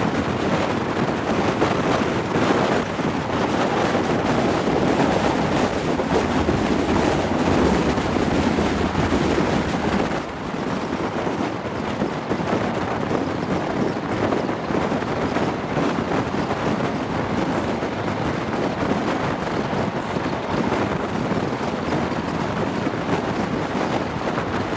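Wind rushing past an open window of a moving train, over the steady running noise of the train on the track. About ten seconds in the rush drops and turns duller.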